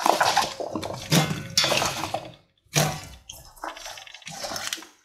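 Wet chopped leek pieces being scooped by hand and dropped into a stainless steel pot, a wet rustling in three spells.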